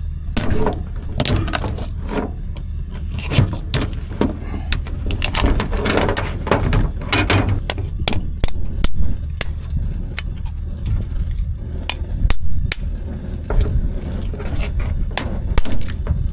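A heavy knife chopping through a raw mud crab's shell on a cutting board: a run of sharp cracks and knocks, irregular, over a steady low rumble.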